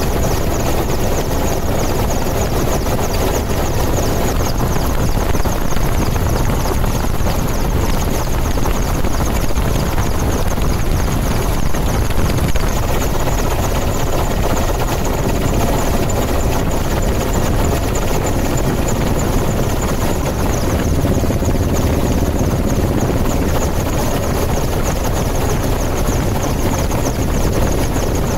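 Police patrol helicopter in flight, heard from on board: a steady rotor and engine noise that holds even throughout.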